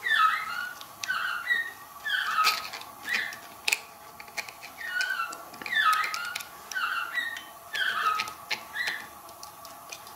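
An animal's short, high, squeaky calls, each falling in pitch, repeated one to two times a second, with a few sharp clicks from a small screwdriver working the plastic actuator housing.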